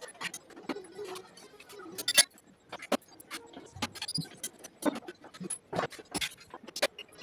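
Irregular clicks and metallic clinks of hand tools and parts being handled, with one louder knock about two seconds in.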